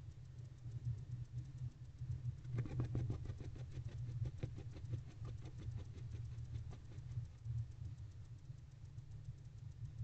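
Barn owl preening inside a nest box: a rapid run of soft clicks and rustles of beak working through feathers, starting about two and a half seconds in and fading out over several seconds, over a steady low hum.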